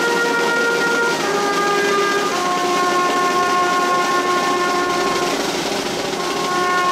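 Processional brass band playing a slow march: long held chords that change every second or few, over the noise of the street crowd.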